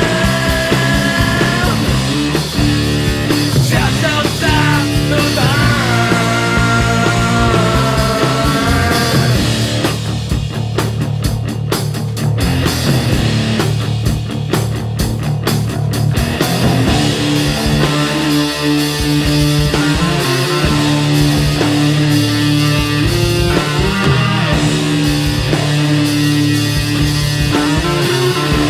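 Grunge punk rock song played by a band with electric guitar. A bending, wavering melody line runs over the first eight seconds or so, then comes a choppy stretch of sharp hits with gaps from about ten to sixteen seconds in, then a steady, repeating low riff.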